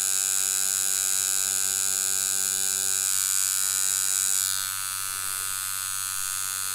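Deki Irons Sensei rotary tattoo machine buzzing steadily as its needle works ink into practice skin. About four and a half seconds in, it turns a little quieter and its higher tone changes as the machine is lifted off the skin for a wipe.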